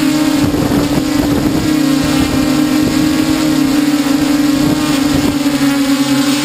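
Multirotor drone's electric motors and propellers whirring steadily in flight, heard close from the camera carried on the drone, holding one strong steady pitch. The sound is rougher and less even for a second or so starting about half a second in.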